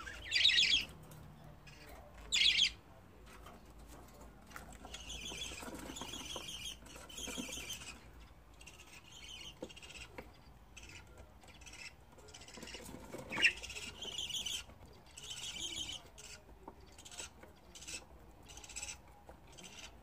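Budgerigars chirping in their cage: two loud sharp calls in the first three seconds, then bursts of chirping chatter on and off.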